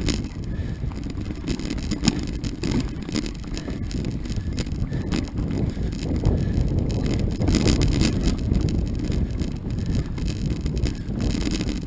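Knobby-tyred mountain bike rolling fast over a rough dirt trail littered with sticks and debris: steady tyre rumble with frequent rattles and knocks from the bike, and wind buffeting the microphone.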